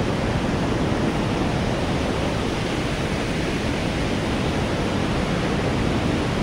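Steady rushing of a fast mountain river or stream, an even unbroken roar of water.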